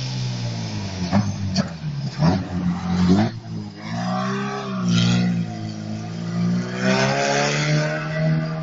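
Engine of a Toyota-liveried sports-prototype race car running as it drives past at low speed. A few sharp cracks come between one and three seconds in, then the engine note dips and rises again.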